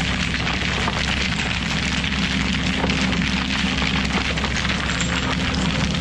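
Skid steer's diesel engine running steadily at a constant speed: a loud, even rumble with a steady low hum.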